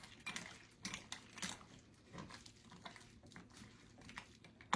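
A metal spoon stirring thick lasagna soup in a slow cooker, with soft, irregular scrapes and light clinks.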